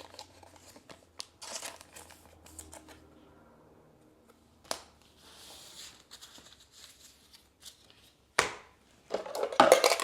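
Pokémon trading cards and their foil booster pack wrapper being handled: soft rustling and occasional sharp clicks, with a louder burst of crinkling near the end.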